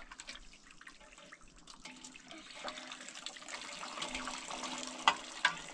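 Water running and splashing, with small clicks throughout and two sharp knocks about five seconds in.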